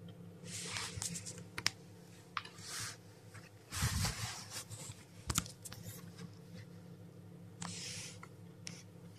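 Scratching and rustling in wood shavings in short bursts, with sharp clicks and a heavier knock and rustle about four seconds in as the camera is jostled. A steady low hum runs underneath.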